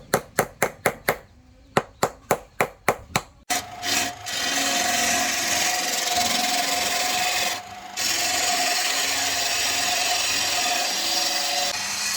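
Two quick runs of sharp taps, about four a second, then a power tool running steadily as it grinds or sands, with one short stop partway through.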